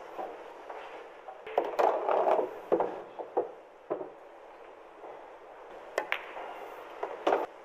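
Pool balls and cue clicking: several sharp knocks, the clearest two about six seconds in and just over a second later, as a shot is played on a 9-ball table.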